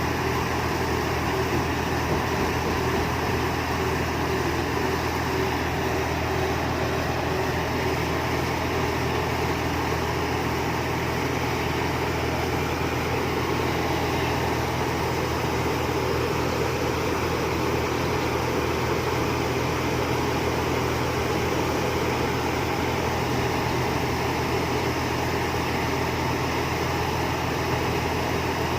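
Rice combine harvester running with a steady, unchanging machine drone.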